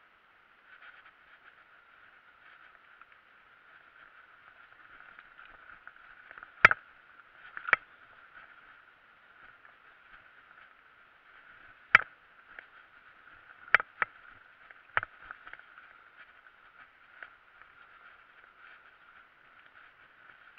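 Mountain bike rolling over a bumpy grass and dirt track, with a steady thin hiss of tyres and wind. About half a dozen sharp knocks and rattles come as the bike jolts over bumps, two of them much louder, about a third of the way in and just past halfway.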